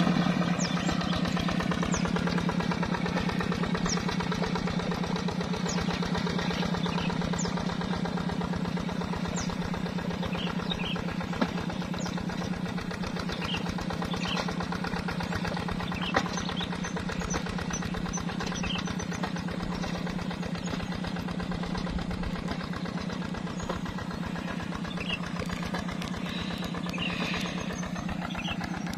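Tractor engine running steadily at an even speed and growing slowly fainter, with a few faint, short high chirps above it.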